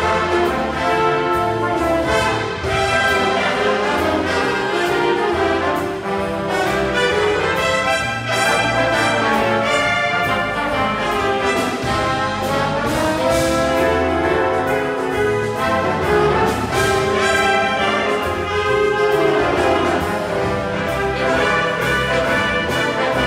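Jazz big band playing in full ensemble: saxophones, trumpets and trombones over a steady rhythm section, with continuous bass.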